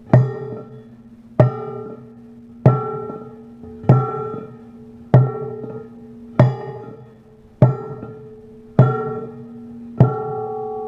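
Background music: a percussive, bell-like note struck about every second and a quarter, always on the same ringing pitches, ending on a longer held chord that fades.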